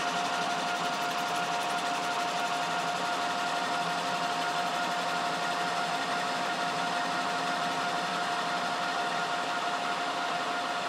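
American Tool Works lathe running at 1,000 RPM while an insert tool faces the end of a 1.5-inch bar: a steady machining hum with one steady whine over it.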